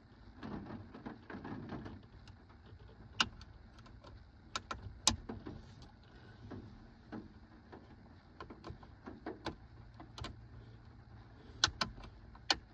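Scattered sharp clicks and light scraping of a small screwdriver prying at the plastic retaining clips of a Ford F-150's dash-mounted 4x4 selector switch housing, a dozen or so irregular ticks with longer pauses between them.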